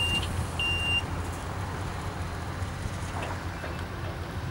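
A construction vehicle's reversing alarm beeping about once a second, two high beeps in the first second and then stopping, over a steady low engine hum.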